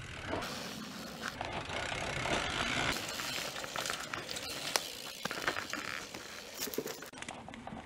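Mountain bike riding a dirt jump trail: tyres rolling over rough dirt with a steady rustle, broken by clicks and knocks from the bike, one sharp knock a little past the middle.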